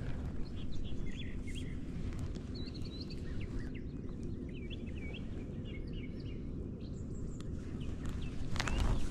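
Small birds chirping in short scattered calls over a steady low rumble, with a few sharp knocks near the end.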